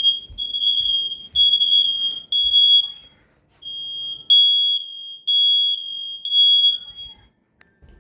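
Home smoke alarm sounding during a test: a high-pitched beep repeating roughly once a second, with a short gap about three seconds in, cutting off about seven seconds in.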